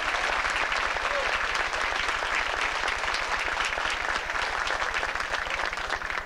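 Audience applauding steadily, a dense patter of many hands clapping that eases off slightly near the end.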